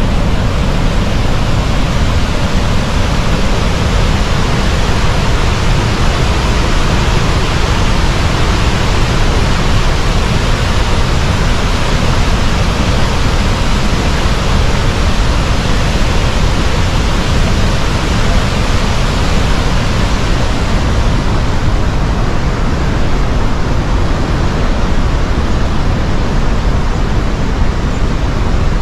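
Kaieteur Falls, a large waterfall, roaring: a loud, steady, even rush of falling water, heavy in the low end, with the top hiss thinning slightly after about twenty seconds.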